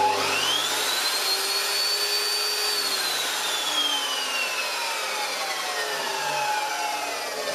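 Work Zone table saw's universal motor and geared blade spinning up under a soft-start controller. The whine rises smoothly in pitch over about two seconds, holds briefly, then falls steadily as the saw winds down. The gentle ramp shows the triac soft start is limiting the motor's acceleration, which before had stripped the gear teeth.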